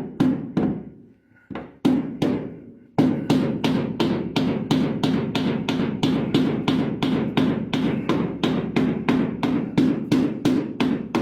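Hammer blows on a car body's sheet metal, straightening a bent lip. A few spaced strikes are followed, from about three seconds in, by steady rapid tapping of about four blows a second, each one leaving the metal ringing.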